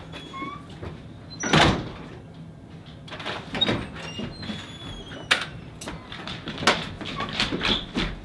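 A door being opened and shut, with one loud thump about one and a half seconds in and several sharper clicks and knocks after it, plus a few short high squeaks.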